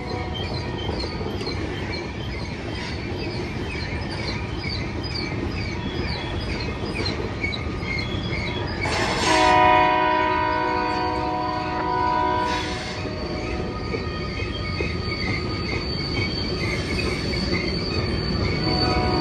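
Freight train rolling through a tight curve: a steady rumble with wheel flanges squealing in rapid repeated chirps, turning to one steady high squeal near the end. A locomotive's multi-chime air horn sounds one long blast from about nine seconds in until about thirteen.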